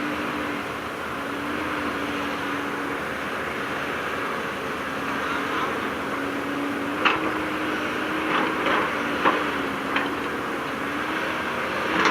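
Excavator running steadily with a constant hum. From a little past halfway there are several sharp metallic clanks, about five of them over three seconds.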